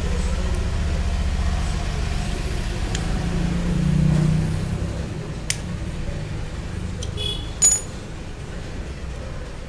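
Metal clutch shoe and clutch plate of a Honda Activa scooter clinking together as the shoe is fitted onto the plate's pivot pins: a light tap past the middle and a sharper ringing metallic clink later on, over a steady low rumble.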